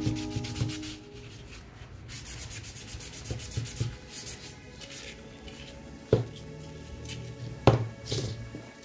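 A gloved hand rubbing fast back and forth along a white PVC pipe bent into a ring, in quick scratchy strokes. Near the end the plastic ring knocks twice on the table.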